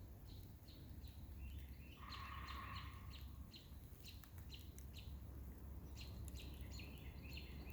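Wild birds chirping, many short high notes repeated throughout, with a longer, lower call about two seconds in, over a low steady rumble.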